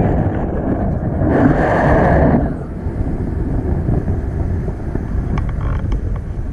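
Wind from the flight's airspeed buffeting the microphone of a paraglider's handheld camera, a steady low rumble, louder for about a second near the start.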